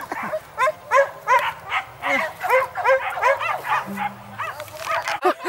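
Hunting dogs barking and yelping in a rapid, excited run, four or five short yelps a second, with more than one dog calling at once.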